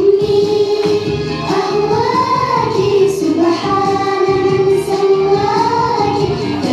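A group of children singing a song together with music, holding long notes that glide slowly up and down.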